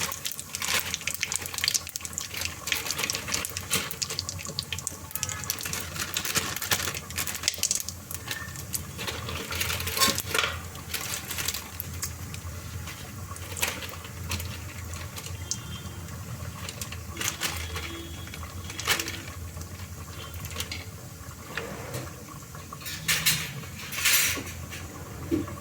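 Whole spices and bay leaves sizzling and crackling in hot oil and ghee in a pot, with a spoon clicking against the pot as they are stirred.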